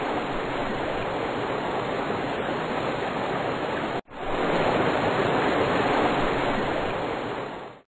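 A steady rushing noise used as a sound effect in the animation. It breaks off sharply for an instant about four seconds in, comes straight back a little louder, then fades out just before the end.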